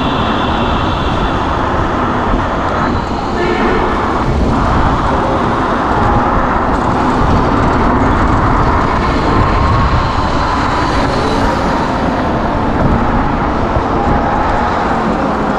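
Steady rush of wind and road noise from riding an electric scooter through city traffic, with a few high steady tones that fade out about three seconds in.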